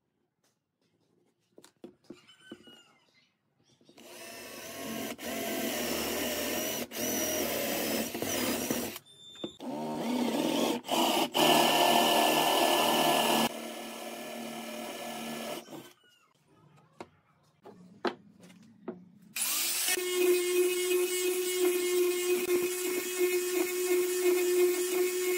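A cordless drill bores into wood in several runs with short breaks. After a pause of a few seconds, an angle grinder fitted with a sanding disc starts up and runs steadily, sanding a wooden dowel.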